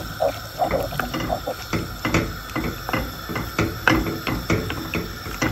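Wooden spoon stirring chunks of broccoli, potato and carrot in broth in a stone-coated nonstick pan: irregular knocks and scrapes of the spoon against the pan, about two or three a second, with a light slosh of liquid.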